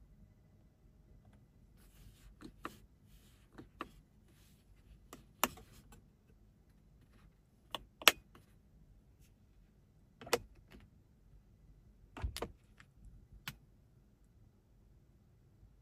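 About ten sharp clicks and knocks at irregular intervals, the loudest about eight seconds in, typical of a car's switches, latches or trim panels being operated by hand.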